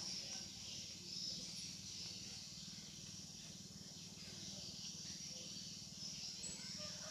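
Steady, high-pitched outdoor drone of insects, unbroken throughout, over a faint low hum.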